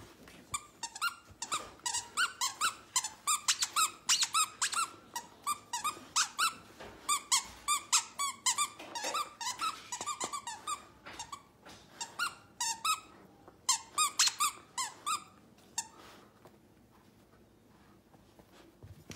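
Squeaker inside a plush toy squeaking over and over as a dog chews on it, short squeaks a few a second in quick runs, stopping a few seconds before the end.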